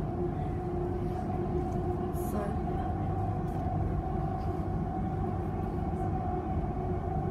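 Inside a High Capacity Metro Train (HCMT) electric commuter train running between stations: a steady rumble of wheels on track with an even two-tone hum from the train's electrical drive.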